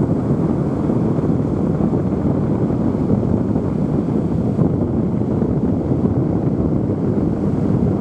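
Wind buffeting the camera microphone: a steady, unbroken low rumble.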